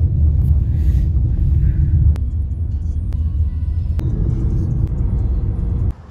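Steady low rumble of road and engine noise inside a moving taxi's cabin, with a couple of sharp clicks, stopping abruptly near the end.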